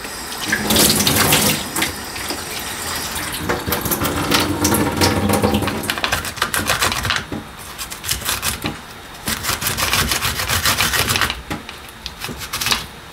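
Garlic cloves being rubbed back and forth on a grater: a rapid, rasping run of scraping strokes, with a short pause near the end.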